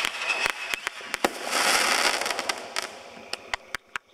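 Consumer fireworks going off: a quick run of sharp pops and cracks, then a dense crackling hiss about a second and a half in that fades over the next second, followed by scattered fainter pops.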